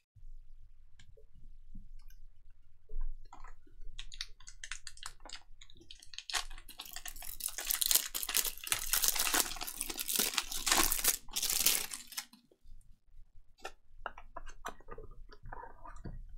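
Foil trading-card pack wrapper being torn open and crinkled, a dense crackling rustle that builds over several seconds and stops abruptly about three-quarters of the way through. After it, scattered soft clicks and rustles as the stack of cards is handled.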